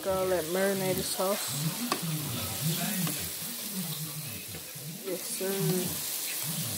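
Hamburger patties frying in steak sauce in a metal pan, sizzling steadily, with a spatula stirring and scraping them. A person's voice sounds briefly at the start and again about five seconds in.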